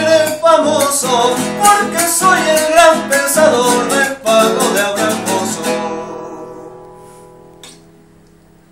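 Nylon-string classical guitar strummed in a chacarera rhythm under a man's singing voice. About six seconds in the strumming stops on a final chord, which rings and fades out over the next two seconds.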